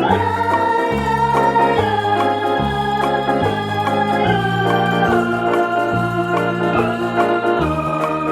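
Background music: a sustained organ-like electronic keyboard melody over a steady repeating bass line.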